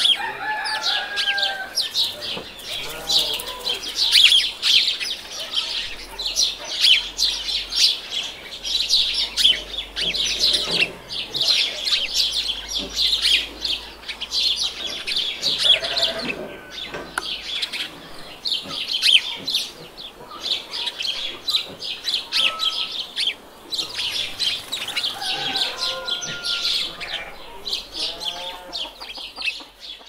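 Farmyard birds: chickens clucking now and then over a constant, dense high-pitched chirping and tweeting of birds.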